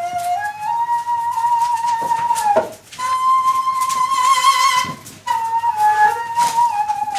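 Daegeum, the Korean bamboo transverse flute, playing a slow solo melody in long held notes. The line climbs to a high note that is held with widening vibrato, and the phrases are parted by two short breath pauses.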